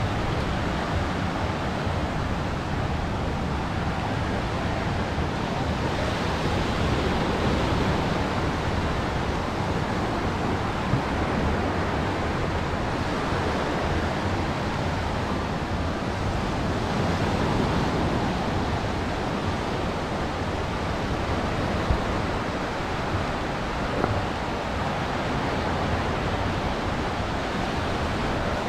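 Ocean surf washing onto the beach: a steady, loud hiss of breaking waves that swells and eases slowly, with some wind rumble on the microphone.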